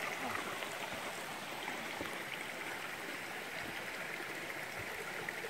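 A mountain stream rushing over rocks, a steady even rush.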